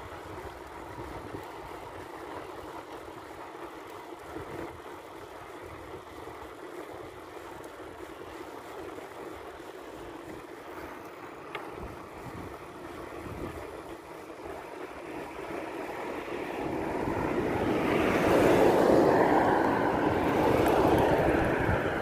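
Wind buffeting the microphone and road noise during a bicycle ride. A louder rushing sound builds from about three-quarters of the way in and eases slightly near the end.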